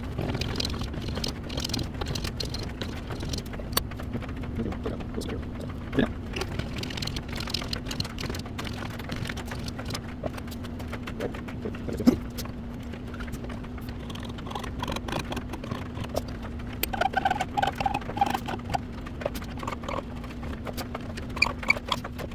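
Hand-tool work on a small piece of scrap wood: continual light scraping and clicking, with two sharper knocks about six and twelve seconds in and brief squeaks near the end. A steady low hum runs underneath.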